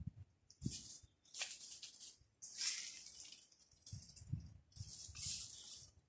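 Footsteps crunching on dry leaves and rubble, about one step a second, each step a short crackling rustle with a dull thud underneath.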